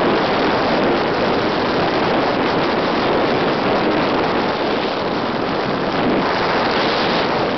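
Steady rush of wind on the microphone aboard a DN-class iceboat sailing fast over lake ice, mixed with the hiss of its steel runners on the ice.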